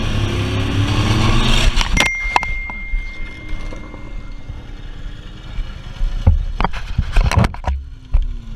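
Motorcycle engine running at road speed with wind noise, then about two seconds in the bike goes down in a tight turn: sharp impacts as it hits the asphalt, a thin steady high tone for a few seconds after, and then scattered knocks and clatter from about six seconds on.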